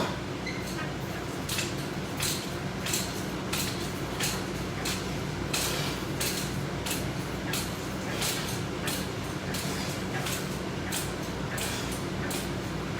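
Resistance-band push-out reps on a wall-mounted band attachment: short rustling, creaking strokes repeating evenly about one and a half times a second, over a steady low room hum.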